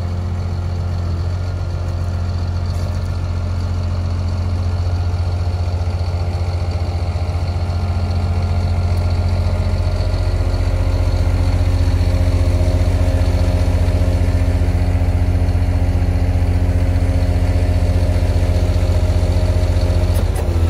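Scania G440 hooklift truck's 13-litre straight-six diesel idling steadily: a deep, even hum that grows a little louder over the first half.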